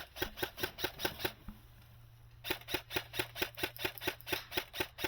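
Airsoft gun firing rapid, evenly spaced shots, about six a second, in two strings with a pause of about a second in between.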